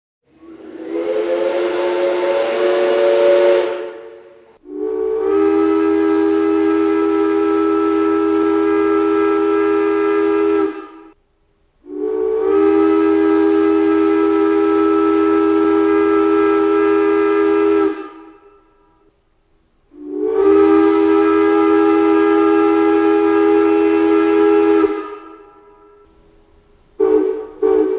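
Steam locomotive whistles blowing a chord of several notes over a steam hiss. A shorter, slightly higher blast comes first, then three long blasts of about six seconds each with short gaps between. Music begins near the end.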